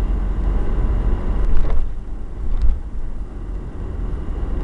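Steady low rumble of a car driving, heard from inside the cabin, with two brief knocks near the middle.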